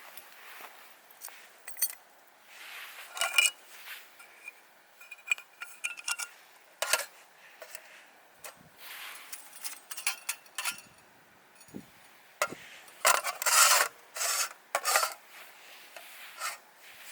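Irregular scraping and rubbing strokes on wood, some short and some longer, with a louder cluster of strokes near the end.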